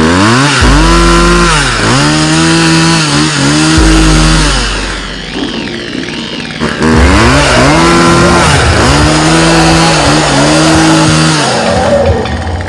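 Chainsaw revving hard in two long bursts, the pitch climbing, holding high, dipping and climbing again, with a quieter lull of about two seconds between the bursts.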